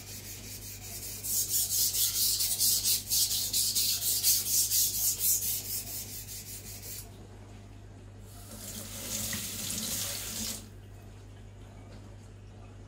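A chef knife's steel edge stroked quickly back and forth on a 2000-grit Naniwa Aotoshi whetstone under light pressure: a rhythmic rasping scrape for about six seconds. Then, after a short pause, about two seconds of a steady rushing noise.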